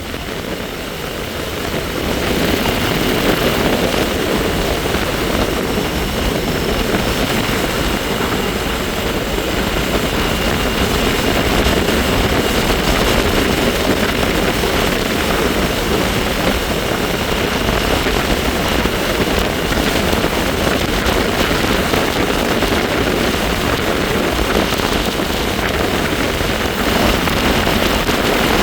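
Wind rushing over the microphone of a moving bike, under a steady high whine from the bike that sounds like the Jetsons' car. It grows louder about two seconds in as the ride picks up.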